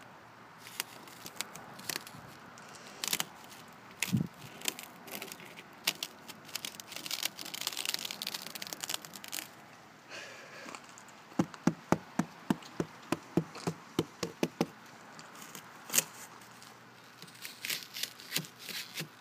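Fingers tapping and pressing on a glaze of ice coating a car door and its handle: scattered sharp clicks and crackles, with a quick run of about a dozen taps, around four a second, in the middle.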